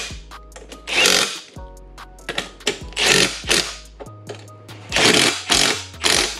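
Cordless Milwaukee Fuel impact driver hammering in several short bursts as it runs bolts down tight on a steel compressor mount plate. Background music with held notes plays underneath.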